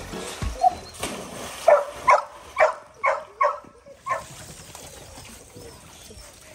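A dog barking in a quick run of about six barks, roughly two a second, then falling quiet.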